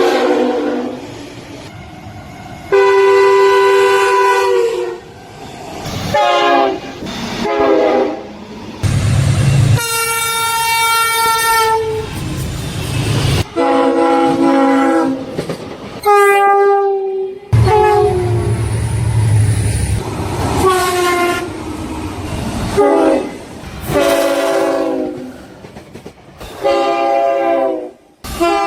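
Train horns from passing trains, one short clip after another with abrupt cuts between them, about a dozen in all. Each is a chord of several notes, and some drop in pitch as the train goes by (the Doppler effect). A few carry the low rumble of the train underneath.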